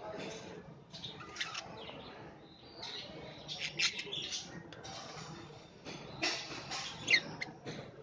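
Budgerigars chattering: an irregular stream of short, squeaky chirps and warbles, with the sharpest chirps about four and seven seconds in.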